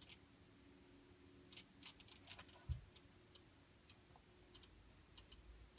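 Faint, scattered small clicks and crackles from soldering: an iron tip melting fresh solder into an old joint on a circuit board, with a soft low thump a little before the three-second mark.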